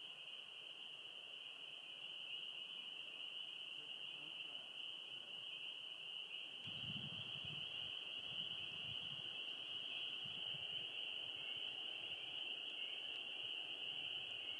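Spring peepers calling in a dense, unbroken chorus, heard as one steady high-pitched ringing. A low, uneven rumble joins about halfway through.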